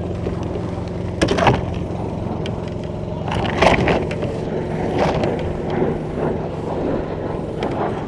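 A machine's engine running steadily, a low even drone. Several short knocks and scrapes sound over it, about a second in and again around three and a half and five seconds in.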